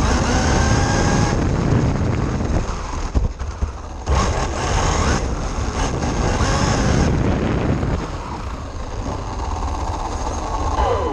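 RC car driving, its motor whining and rising and falling in pitch with speed, with a falling whine near the end.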